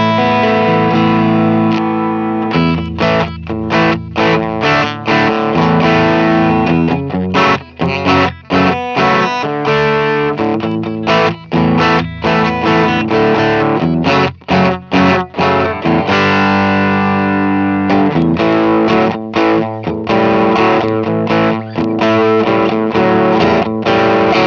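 Electric guitar played through a Mesa Boogie Mark IIC+ amp model with distortion: ringing chords and riffs broken by many short, abrupt stops.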